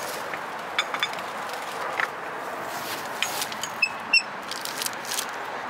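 Scattered metallic clicks and knocks of tools and car-jack hardware being handled, with a short ringing ding about four seconds in, over a steady background hiss.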